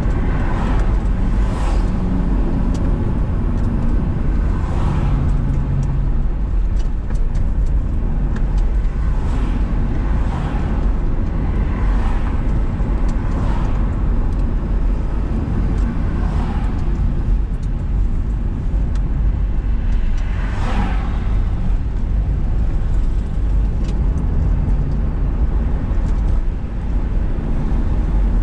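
Car driving on a road: a steady low rumble of engine and tyres, with passing vehicles whooshing by every second or two, one louder than the rest about two-thirds of the way through.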